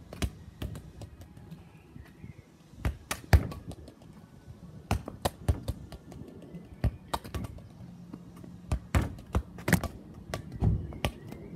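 Football being dribbled and kicked on concrete paving slabs: an irregular string of sharp thuds and taps from foot on ball and ball on paving, loudest about three seconds in.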